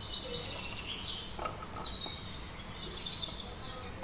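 Birds chirping in the background in short high rising and falling notes, over a faint steady background hiss. A faint soft knock about one and a half seconds in, as small gooseberries are dropped into a mortar.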